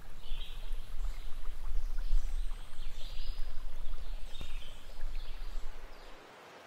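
Outdoor woodland creek ambience: running water under a loud, uneven low rumble, with a few short high-pitched calls. About six seconds in it drops suddenly to a quiet, steady hiss.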